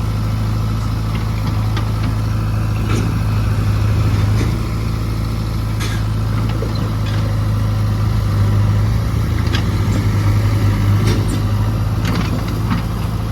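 Heavy diesel engine running steadily at a constant pitch, with scattered sharp knocks and clanks from the earthmoving work.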